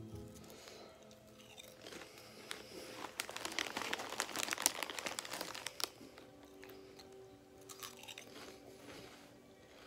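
A person crunching and chewing chips close to the microphone. The crunches come thick and fast through the first half, then thin out, over faint background music.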